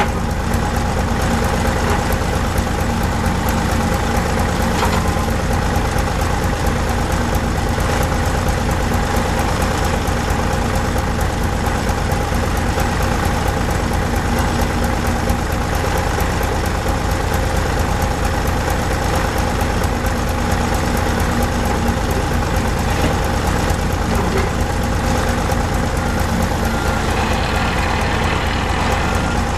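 John Deere 27D mini excavator's diesel engine running steadily while the boom, arm and bucket are worked. Faint repeated beeping comes in near the end.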